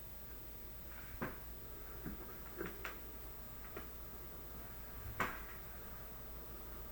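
Light handling clicks and rustles as hands work on the tracheostomy ties and supplies: about six soft, scattered taps, the loudest about five seconds in.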